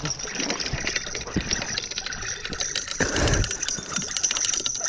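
Water splashing and sloshing, with many small clicks and a louder surge about three seconds in.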